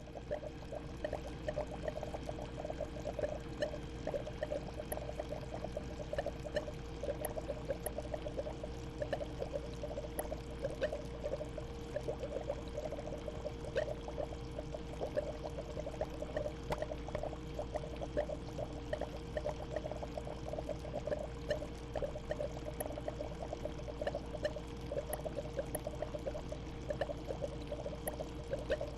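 Home aquarium water bubbling and trickling steadily, a dense stream of small splashes over a steady hum.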